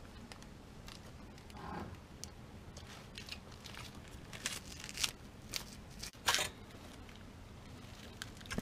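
Plastic snack-wrapper crinkling in short scattered rustles as a honey bun is handled and eaten. The rustles bunch up a little past the middle, and the loudest comes just after that.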